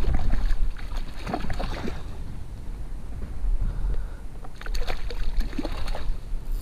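A hooked trout thrashing and splashing in a landing net at the water's surface, in two spells: about a second in and again near the end. Wind rumbles on the microphone throughout.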